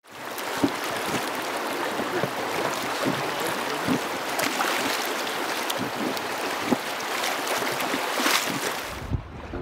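Flowing river water: a steady rushing hiss of current with scattered small splashes. About nine seconds in it changes abruptly to a duller, lower water sound with some low rumble.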